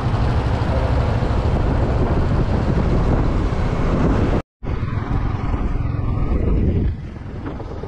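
Steady road and wind noise of a moving vehicle, with no distinct events. It breaks off in a brief gap of silence about halfway through, then resumes and grows somewhat quieter near the end.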